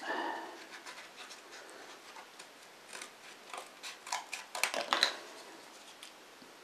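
Scissors snipping through thin cardboard in a run of short cuts, loudest and closest together about four to five seconds in.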